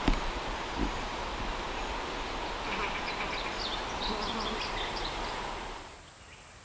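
Bird chirping over steady outdoor background noise: a quick series of short, high notes about three seconds in, with a few more notes near the end after the background drops quieter.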